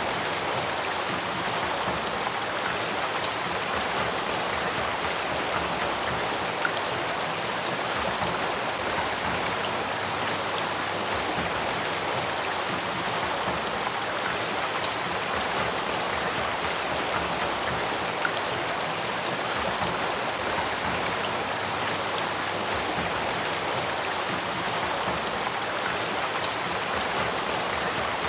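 Spring-fed headwater stream of the Sacramento River running steadily: an even rush of flowing water with small splashes.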